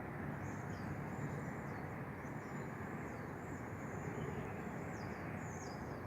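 Steady outdoor background rumble with faint, high bird chirps and warbles coming and going over it.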